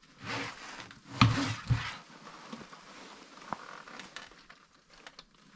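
Paper pages of a wall calendar rustling and flapping as they are lifted and turned, with a few light taps.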